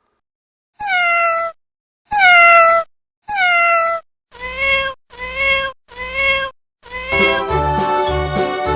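Domestic cat meowing: three drawn-out meows that fall in pitch, then four shorter, lower meows in quick succession. Children's music starts near the end.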